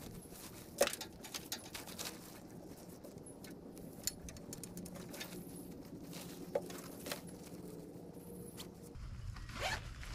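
Scattered clicks and knocks from the fiberglass poles and fabric of a truck bed tent being pitched by hand, the sharpest about a second in. Under them runs a steady low hum that stops near the end.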